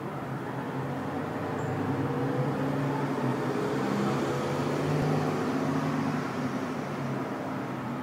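A motor vehicle going by on the road, its engine hum and tyre noise swelling to a peak about five seconds in and then fading.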